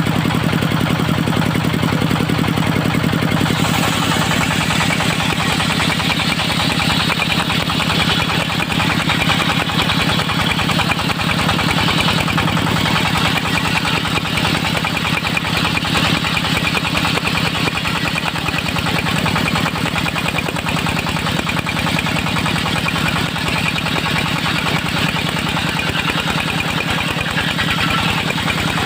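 Engine of a portable circular-saw sawmill running steadily. About four seconds in, a hissing sound joins the engine and holds steady.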